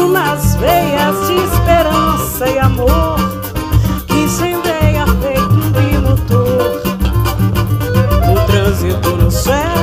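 Live band music: a woman singing into a microphone over drum kit, electric bass, cavaquinho, acoustic guitar and hand drums, with a steady beat.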